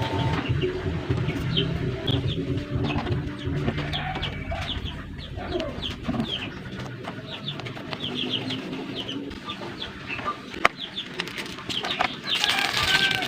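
A soft, sticky, dough-like mass being squeezed and poked by hand, giving a quick run of small, wet, chirp-like pops and clicks.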